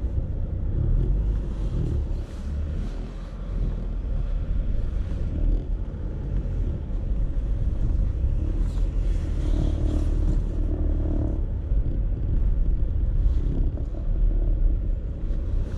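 Car being driven on a short test run after a minor collision: a steady low rumble of engine and road noise, a little louder around the middle.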